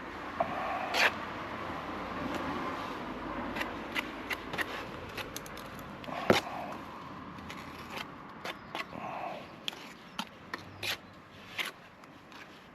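Scattered scrapes and sharp clicks of hand plastering tools working render, the loudest click about halfway through, over a steady background hum.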